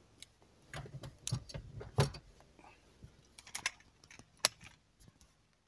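Irregular clicks and knocks from a 2012 Scion xD's driver's seat being moved all the way forward, with the sharpest knocks about two seconds in and near the end.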